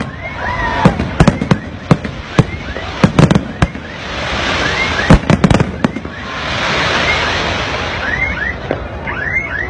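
Aerial fireworks display: clusters of sharp bangs from bursting shells, with stretches of crackling hiss and short whistling glides. The bangs thin out over the last few seconds.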